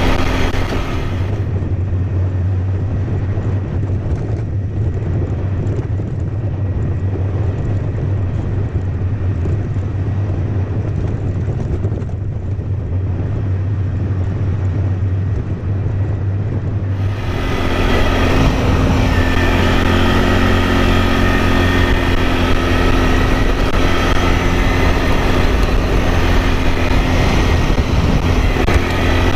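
ATV engine running steadily under way, a continuous drone. It sounds dull and muffled for the first half, then turns brighter and fuller from about 17 seconds in.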